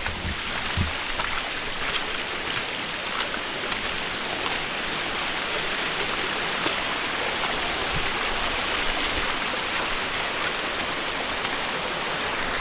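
Rainwater pouring down the fort's steps like a small waterfall: a steady, even rush of running water.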